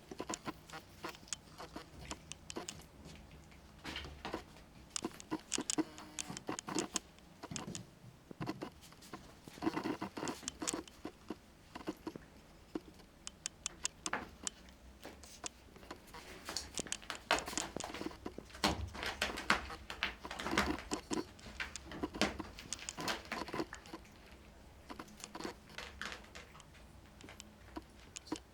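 Cats pawing and scrabbling at a spider: an irregular patter of small taps and claw clicks, busiest in the middle and again past the halfway point.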